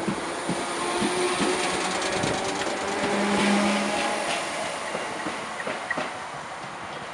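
Merseyrail third-rail electric multiple unit pulling away past the platform, its wheels clicking over the rail joints, loudest as the last coach goes by and then fading as the train draws away.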